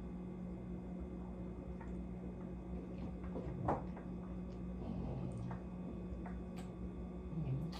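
Quiet kitchen room tone with a steady low hum, broken by a few faint clicks and taps, the clearest a little under four seconds in.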